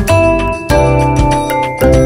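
Instrumental background music with a steady beat, its notes and bass changing about twice a second.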